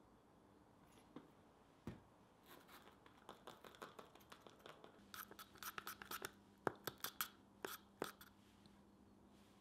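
A thin wooden stick stirs a thick paste of forge lubricant in a tin can, scraping and clicking against the metal sides and bottom. The stirring picks up about two and a half seconds in and is busiest over the second half. A faint low hum comes in about halfway through.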